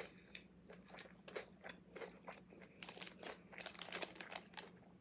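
Close-up chewing of a banh mi's crusty baguette: a run of small crunches and crackles, busiest about three seconds in. The crust is cracking apart, which the eater takes as the sign of dry bread.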